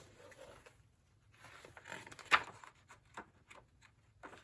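Pages of a large old book being turned and handled: soft paper rustling with one crisp flick of a page about two seconds in, then a few light taps.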